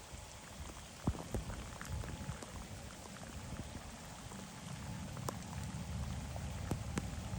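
Steady rain with scattered sharp drop ticks, under a low rumble that grows from about halfway through.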